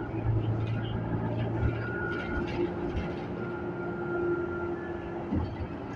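City transit bus running, heard from inside the passenger cabin: a steady drive hum and road noise with a thin steady whine over it; a lower hum eases off about two seconds in.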